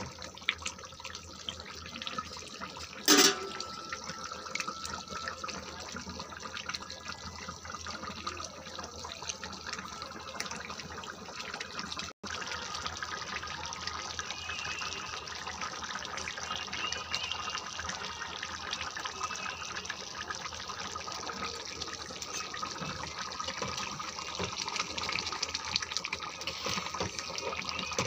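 Chicken and potato curry bubbling and simmering in a nonstick pan, with a spatula stirring through the thick gravy. One sharp knock about three seconds in.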